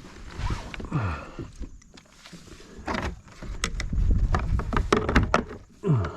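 Clicks and knocks of fishing gear being handled in a plastic kayak, in a dense cluster in the second half. Two short sounds slide down in pitch, one about a second in and one near the end.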